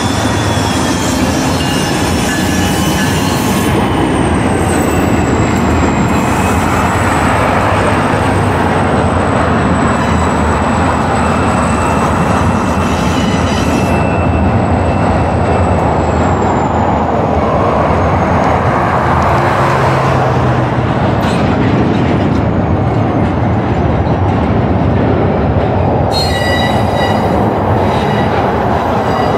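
BNSF double-stack intermodal freight train rolling past close by: a steady rumble and clatter of wheels on rail, with a thin high wheel squeal held for long stretches and slowly falling in pitch.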